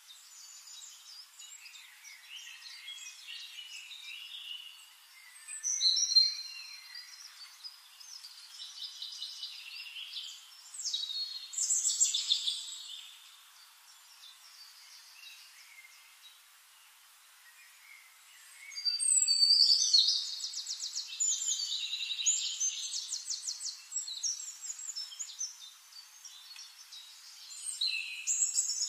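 Birds singing and chirping, several calls overlapping, with short gliding whistles and fast trills that swell and fade in spells.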